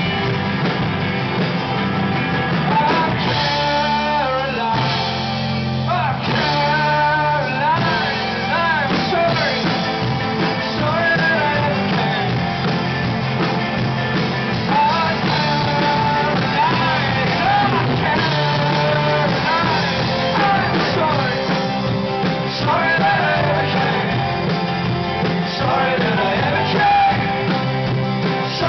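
Live rock band playing a song: a singer's vocal melody over guitars and bass, the voice coming in about three seconds in and carrying on in phrases.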